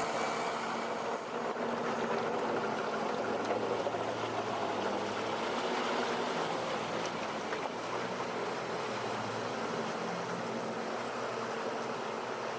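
A vehicle engine running steadily under a broad, even rushing noise.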